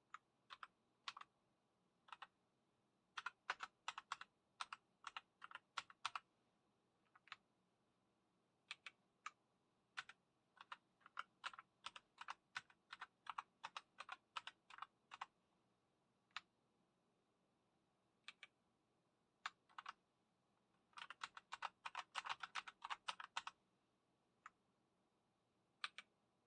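Keys being typed on a KOORUI MK082 mechanical keyboard with red linear switches: quick, sharp keystroke clicks in irregular flurries, with short pauses and single taps between.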